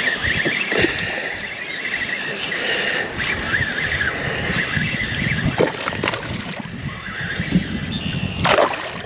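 Fishing reel whirring as line is wound in, with water sloshing and splashing around a kayak as a hooked bass is played; several knocks and splashes come in the second half, the biggest near the end.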